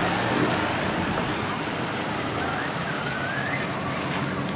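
Cars driving past at low speed. The engine of one car fades as it pulls away in the first second, leaving steady street and crowd noise.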